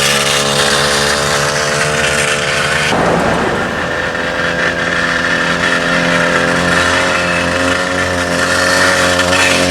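A 50cc two-stroke bicycle-kit engine running at steady high revs while riding; about three seconds in its pitch shifts and it settles at a new steady note.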